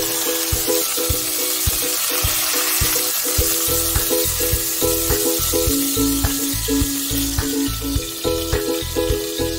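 Oil sizzling steadily in a pot as a whole chicken fries, over background music with a steady beat.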